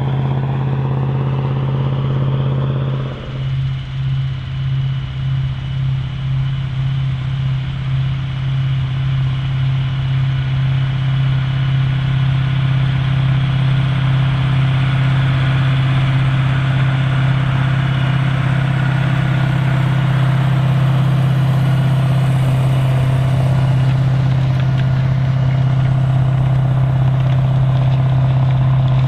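Large articulated farm tractor's diesel engine running steadily. A few seconds in, the sound changes and throbs about twice a second for several seconds before evening out.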